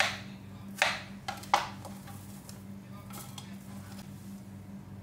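Kitchen knife slicing lobster balls and knocking on a plastic cutting board: three sharp strikes in the first two seconds, then quieter handling of the cut pieces.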